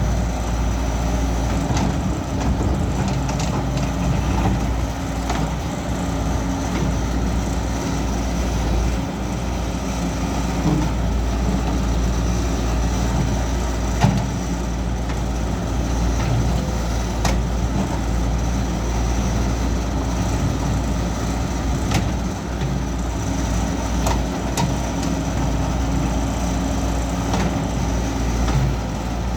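Caterpillar excavator's diesel engine running steadily while the machine digs, with a few sharp knocks scattered through it, the loudest about halfway through.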